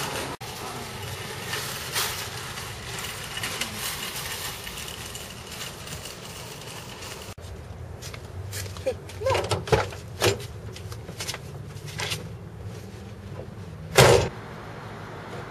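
Outdoor background noise, then a few knocks and clunks and one loud thump near the end as a car door is shut.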